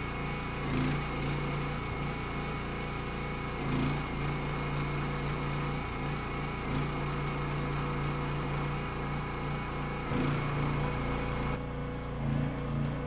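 Small gas engine of a paint sprayer running steadily at one speed, driving the pump that feeds the hand spray gun.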